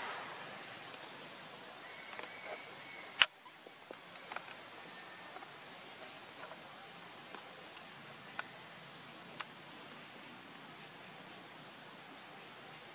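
A steady high-pitched insect chorus of two held tones over a light outdoor hiss, with a single sharp click about three seconds in and a few short rising chirps and faint ticks later.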